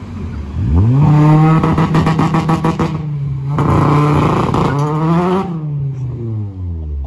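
Car engine accelerating hard as a hatchback pulls away and drives past. The revs climb sharply just under a second in, dip briefly around three seconds in and climb again, then the pitch falls away after about five and a half seconds as the car moves off.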